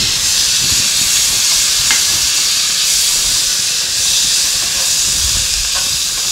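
Chopped tomatoes sizzling with a steady hiss in hot oil and onion-spice masala in a non-stick pan, while a wooden spatula stirs and scrapes, giving soft low knocks.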